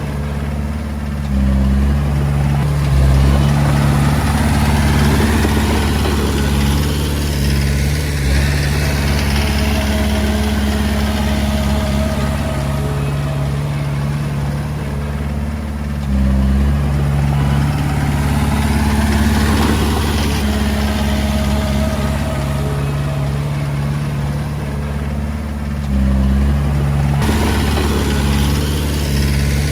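Komatsu D20A bulldozer's diesel engine running steadily, its low drone stepping up and getting louder about a second in, again halfway through and again near the end as the engine takes on load.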